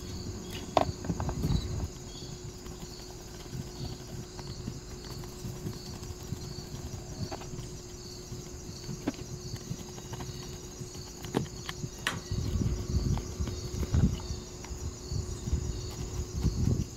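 Scattered clicks, knocks and rubbing from the small diaphragm pump and motor of an electric knapsack sprayer being handled and turned over on a workbench, heaviest in the second half. Crickets chirr steadily in the background.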